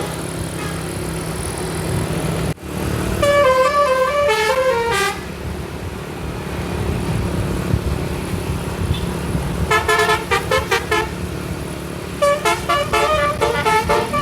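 A bus's telolet horn plays three short tunes of fast-stepping notes, starting about three seconds in, about ten seconds in, and again near the end, over a steady rumble of engine and road noise.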